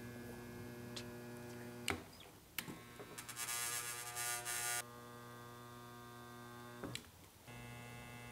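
Handheld resistance spot welder buzzing steadily as the current is held through its copper tongs, spot-welding a sheet-steel mounting plate onto the firewall panel. The buzz comes in stretches of about two seconds with short clicks between them, and a hiss joins in during the second stretch.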